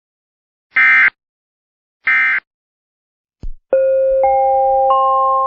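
Two short data bursts of an Emergency Alert System end-of-message code, about a second apart. They are followed by a click and a three-note rising electronic chime whose notes stack one by one into a held chord.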